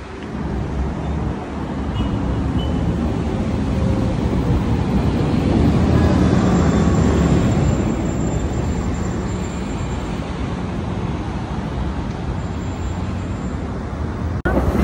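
City street traffic, with cars and a bus driving past: a steady rumble of engines and tyres that swells to its loudest about halfway through.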